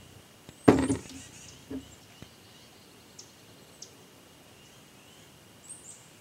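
A single sharp knock or bang about a second in, followed by a smaller knock and a few faint clicks, with faint high bird chirps near the end over a low outdoor background.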